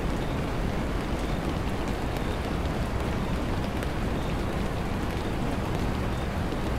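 Steady rain falling: a constant hiss with a low rumble beneath it and a few faint drop ticks.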